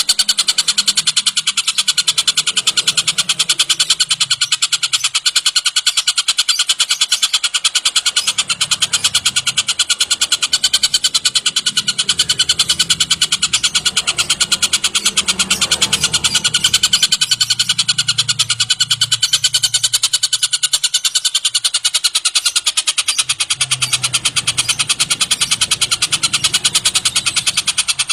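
Tengkek buto bird calling in a rapid, evenly pulsed trill that runs on without a break.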